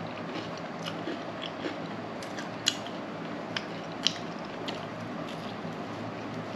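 Close-up eating sounds: biting and chewing into chicken wings, with a few sharp crunches around the middle, over a steady low hum.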